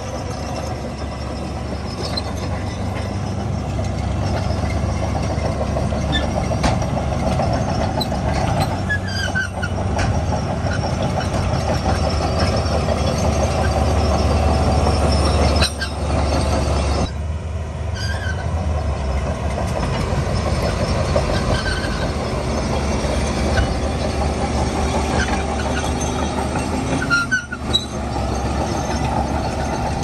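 Crawler bulldozer's diesel engine running steadily under load as it pushes soil, a deep rumble with short high squeaks here and there from its tracks. The sound drops out abruptly for a moment a few times.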